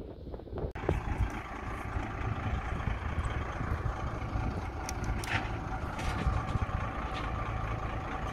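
A truck engine idling steadily, coming in about a second in, with a few short sharp metal clinks around the middle.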